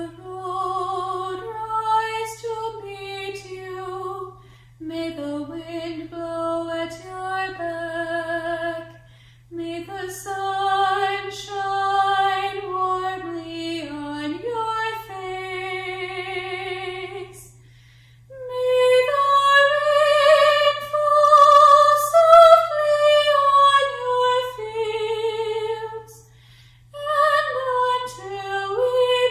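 A woman singing a slow melody solo, with vibrato, in phrases separated by short pauses. A steady low hum runs underneath.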